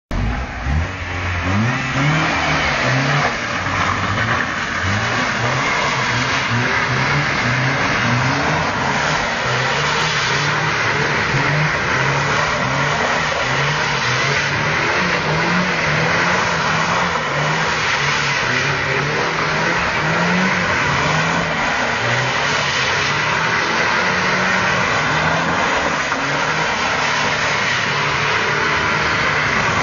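Opel Omega's 2.0-litre 16-valve twin-cam four-cylinder engine revving up and down over and over as the rear-wheel-drive car is slid round in circles on a wet surface, with a steady hiss underneath.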